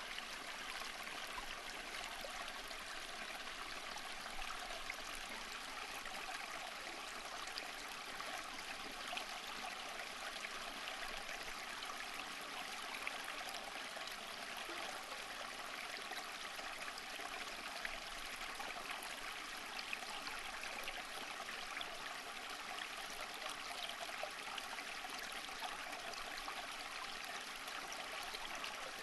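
Flowing stream water running steadily over rocks, an even rushing trickle with small splashes.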